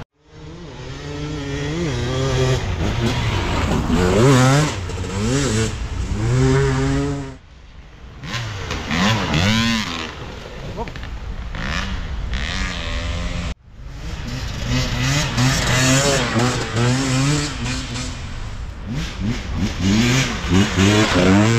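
Off-road racing motorcycles revving hard and changing pitch as they climb a muddy race course under load, several engines overlapping. The sound breaks off abruptly twice.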